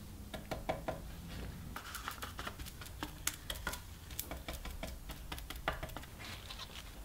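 Brush dabbing epoxy resin into wet carbon fibre cloth, making quick, irregular light taps and clicks.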